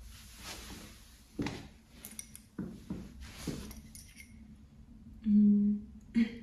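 Clothing and chair rustling with soft knocks as a person settles into an armchair and handles knitting, with light clinks of metal knitting needles. About five seconds in comes a brief hum-like tone, the loudest sound, and a short sound just before the end.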